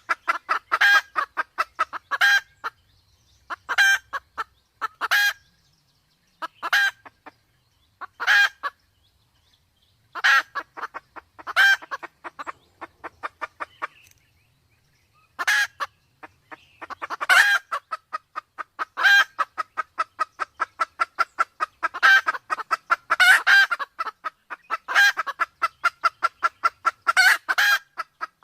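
Sumatran red junglefowl calling: fast runs of short clucks, with louder notes standing out every second or two. The runs stop briefly twice, about nine and fourteen seconds in.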